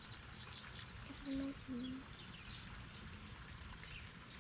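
Faint outdoor ambience with birds chirping: many short, high, falling chirps repeating. About a second and a half in come two short low hums, one after the other.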